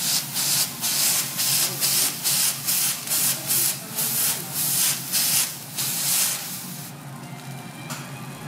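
A folded cloth wiped back and forth across a hot steel teppanyaki griddle, each stroke a hissing rub, about two to three strokes a second. The strokes stop about six seconds in, leaving a fainter steady hiss from the hot plate.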